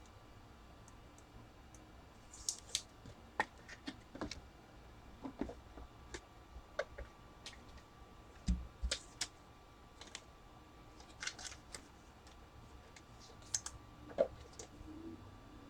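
Hands handling trading cards and their packaging: scattered, faint light clicks and crinkles at an uneven pace, with a soft thump near the middle.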